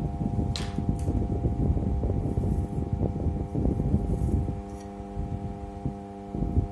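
A steady mechanical hum made of several held tones, under low, uneven rumbling handling noise that thins out about four and a half seconds in. Two brief scratchy sounds come about half a second and a second in.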